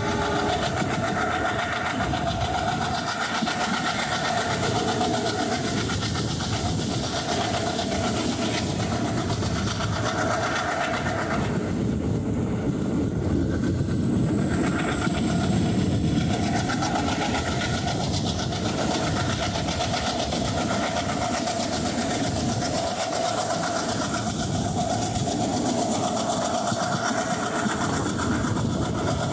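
A passenger train running steadily along the track: a constant loud running noise with humming tones that fade in and out, and a few seconds about twelve seconds in where the upper hiss drops away.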